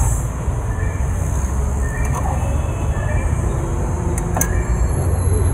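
Steady low rumble of vehicle engines and traffic, with a single sharp click about four seconds in.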